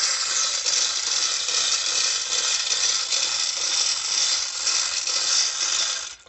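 Manual chain hoist being hand-pulled: a continuous rattle of chain running through the block, with ratchet clicking, as a pipe is winched up out of a borewell casing. It cuts off just before the end.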